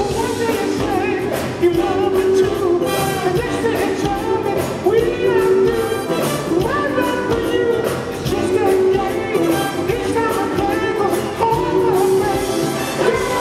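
Live soul band playing while a man sings lead into a microphone, holding long notes that bend in pitch.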